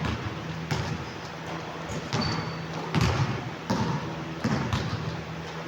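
Basketball bouncing on a court during play: a handful of irregular thuds, with one short high squeak about two seconds in.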